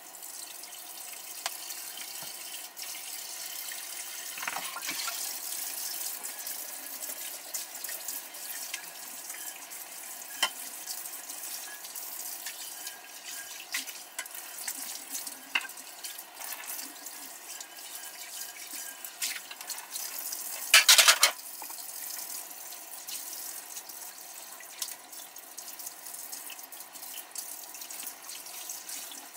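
Kitchen faucet running into the sink while something is washed under it by hand, with scattered light clinks and one loud clatter about two-thirds of the way through.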